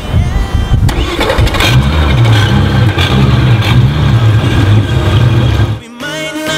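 Quad Mercury Racing 350 Verado outboard engines running and revving, their pitch rising and falling. The sound cuts in suddenly and stops abruptly near the end.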